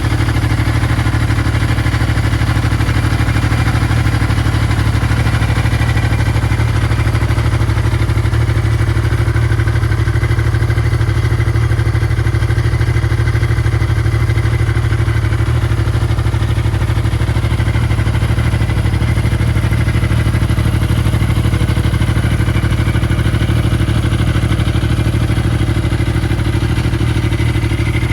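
An engine idling steadily, with an even low pulse and no revving.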